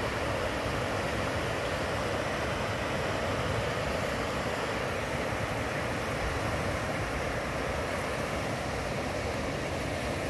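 Steady rushing of river rapids: white water on a river running high, with a lot more water than usual.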